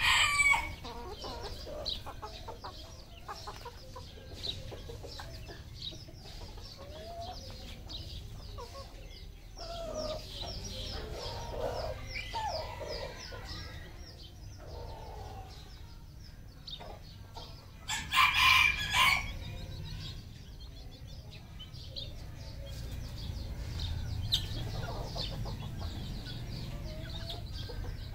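Red junglefowl calling: the end of one rooster crow right at the start, and a second loud crow lasting about a second about two-thirds of the way through, with scattered clucks and short calls from the flock in between.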